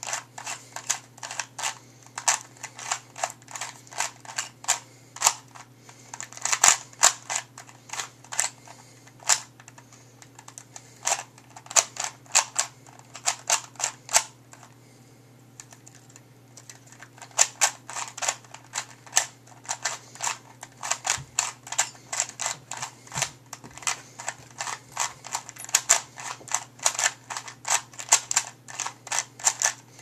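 Plastic Rubik's Cube turned rapidly by hand during a timed solve: quick runs of sharp clicks and clacks as the layers snap round, broken by a pause of about two seconds about halfway through.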